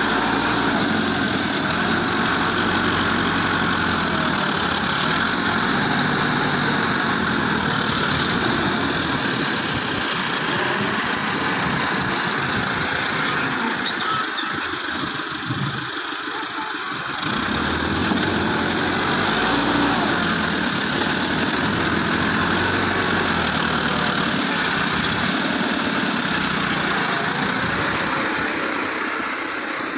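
Diesel engine of heavy road-building machinery running steadily, with the low engine sound dropping away for a few seconds about halfway through.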